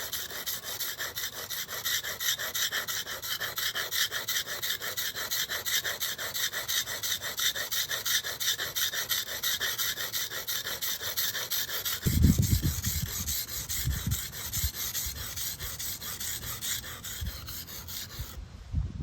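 Steel blade being stroked back and forth on the coarse side (roughly 250 grit) of a wet sharpening stone: a steady rhythmic scraping of about two to three strokes a second. The blade is being worked to raise a burr along the whole edge. Some low thuds join about two-thirds through, and the scraping stops just before the end.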